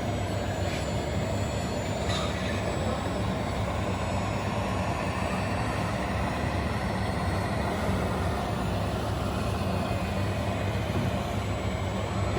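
Radio-controlled model trucks and construction machines running, a steady low hum with mechanical noise over it.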